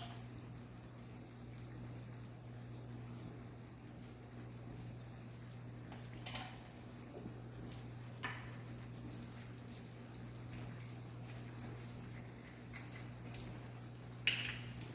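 Faint sizzling of chicken and artichoke hearts cooking in a pan, over a steady low hum. A few light clicks or taps come through, one about six seconds in, one about two seconds later, and one near the end.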